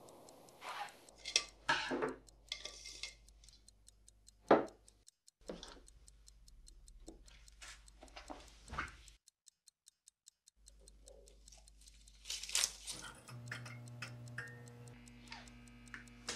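Faint, steady ticking like a clock, broken by a few soft knocks and rustles, the loudest about four and a half seconds in. A low steady hum comes in about three-quarters of the way through.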